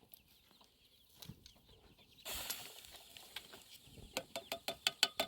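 Chickens clucking, with a quickening run of short, sharp clicks in the last two seconds.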